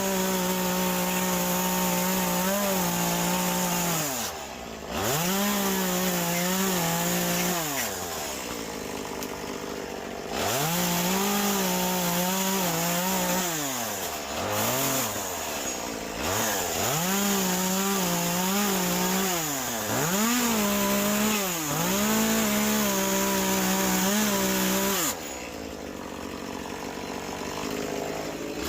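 Echo CS-2511 top-handle two-stroke carving chainsaw cutting into wet cedar. It revs up to full throttle in about six bursts of a few seconds each and drops back toward idle between cuts. It is left idling near the end.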